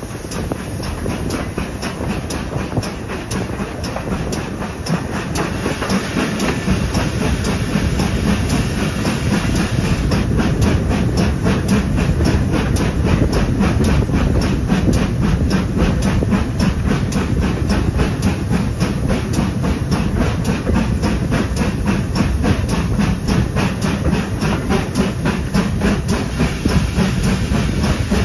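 Steam-hauled passenger train running along the line, heard from an open carriage window: wheel and rail noise with wind rush and a fast, even beat. The beat grows louder over the first few seconds.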